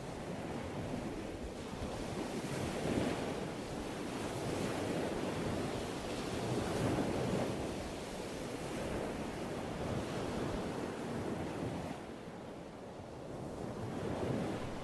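Ocean surf: waves breaking and washing in a continuous rush that swells and eases every few seconds, dipping briefly near the end.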